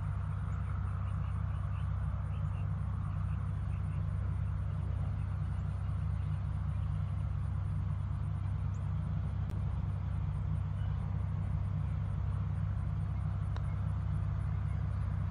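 An engine running steadily in the distance, a low, even drone that does not change, with a few faint high chirps over it.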